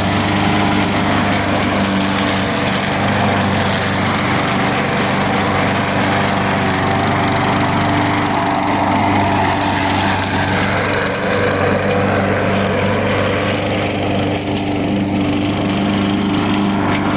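Gas push lawn mower's small engine running steadily at a constant speed.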